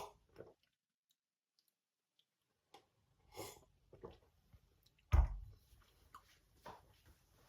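Scattered light clicks and knocks of coffee things being handled, with one heavier thump about five seconds in, after a couple of seconds of silence.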